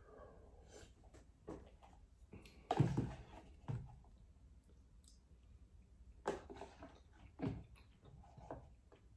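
Faint eating sounds from finishing soup out of a plastic container: slurps and chewing, with light clicks and knocks of the container and utensil. Several short sounds, the loudest about three seconds in.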